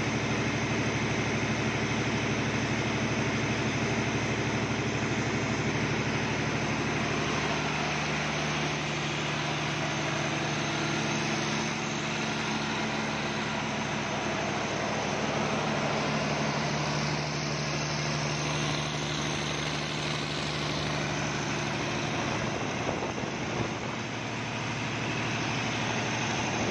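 Perkins diesel engine of a refurbished 150 kVA generator set running steadily at rated speed, generating about 228 V per phase. The engine note stays even, with a slight change in texture about 22 seconds in.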